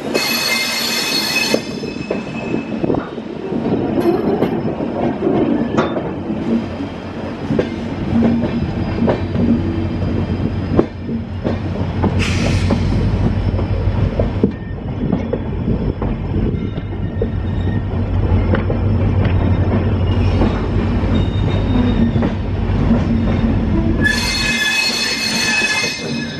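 Passenger train coaches rolling over curved track and points, with a steady running rumble and repeated clacks over the rail joints. The wheels squeal high-pitched near the start and again near the end, with a short hiss about halfway.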